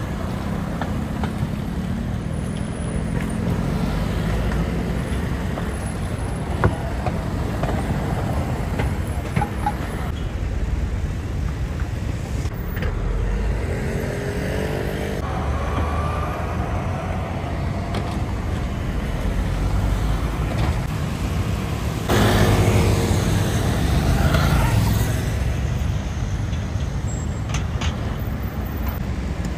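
City road traffic: cars, buses and motor scooters running past in a steady rumble. An engine note rises about halfway through, and the traffic gets louder for a few seconds about three quarters of the way in as a vehicle passes close.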